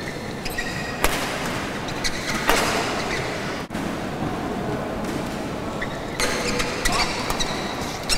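Badminton doubles rally: sharp cracks of rackets striking the shuttlecock and short squeaks of shoes on the court, over a steady crowd hum. There is a brief drop-out about halfway through where the footage cuts to another rally.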